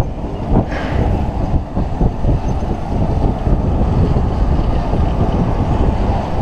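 Wind buffeting a rider's action-camera microphone on a spinning tower chain-swing ride, a loud, steady rumble.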